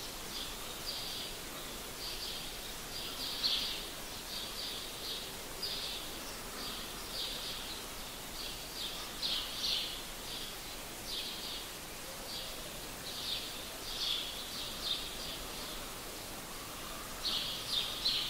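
A bird chirping repeatedly, short high chirps in quick groups of two to four, coming every second or so over a faint steady hiss.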